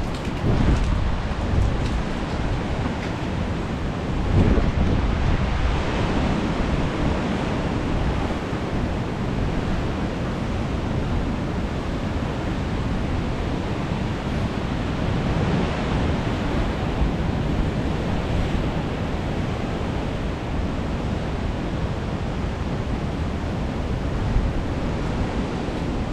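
Strong gusting wind buffeting the microphone, over the rush of sea surf, with a stronger gust about four seconds in.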